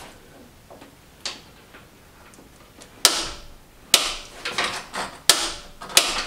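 Sharp metallic clicks and clanks of a socket wrench being worked on the crankshaft bolt of a BMW M51 diesel engine: a few faint taps, then four or five loud clicks about a second apart, each ringing briefly.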